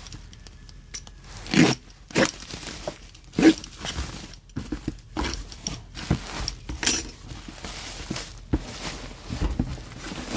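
Black plastic bag wrapping crinkling, rustling and tearing as it is pulled off a cardboard box, with several louder rips, most of them in the first few seconds.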